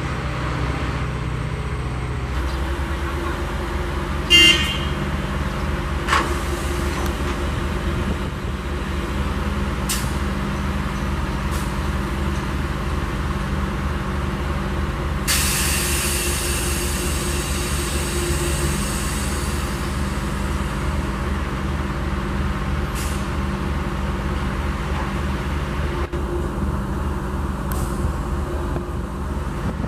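Plasser & Theurer Duomatic 09-32 CSM track tamping machine running, its diesel engine a steady low drone. A short high toot comes about four seconds in, and a hiss of released air lasting about four seconds comes about halfway through.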